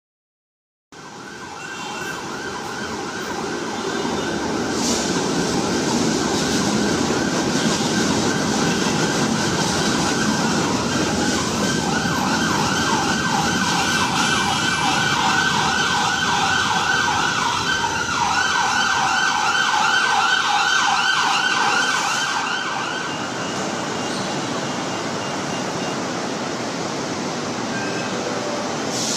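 LRT Line 1 second-generation light rail train running at a station platform, its rumble building over the first few seconds. A fast warbling, siren-like whine rides over it until a little past two-thirds of the way, then the sound settles to a lighter, steadier running noise.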